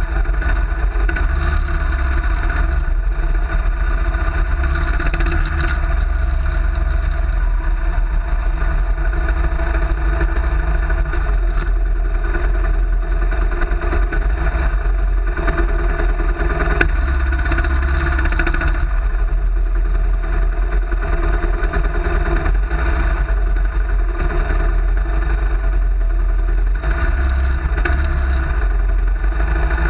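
Kawasaki KLR650's single-cylinder four-stroke engine running at fairly steady revs, its pitch shifting a little now and then, over a strong low rumble. A single sharp click is heard about seventeen seconds in.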